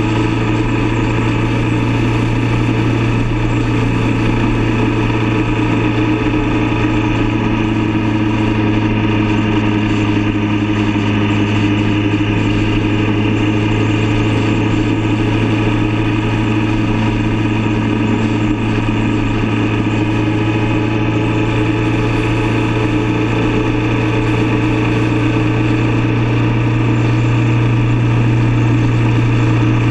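Motorcycle engine running at a steady cruise, a constant drone that swells slightly near the end.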